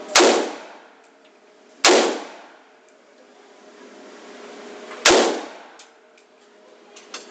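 AK-47 rifle firing three single shots, the second about two seconds after the first and the third about three seconds later, each with a short echo of an indoor range. A few faint clicks follow near the end.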